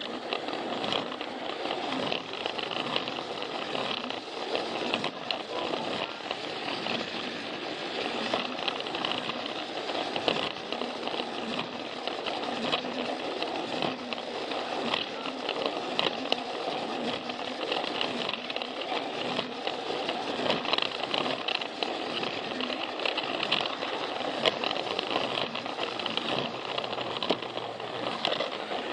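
Battery-powered Plarail toy train running along plastic track: the steady whir of its small motor and gearbox, with continual fine clicking and rattling from the wheels on the track.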